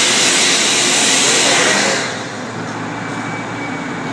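Machinery noise: a loud rushing hiss that cuts off suddenly about two seconds in, leaving a steady low mechanical hum.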